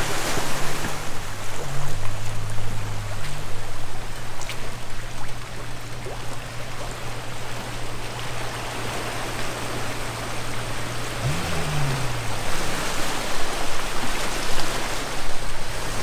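Rushing river water, with the low steady hum of an off-road vehicle's engine beneath it. The engine briefly revs up and back down about eleven seconds in as the Suzuki Jimny drives into the crossing.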